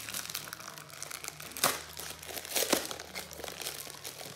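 Clear plastic packaging crinkling as it is handled and pulled open by hand, with a couple of sharper, louder crackles.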